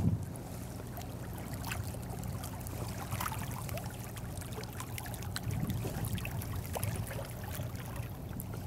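Small lake waves lapping and trickling around a wading angler's legs, with many scattered light ticks.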